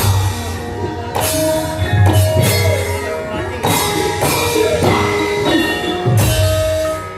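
Javanese gamelan music: metallophones ring held tones over heavy low drum or gong strokes every second or two, with jingling percussion.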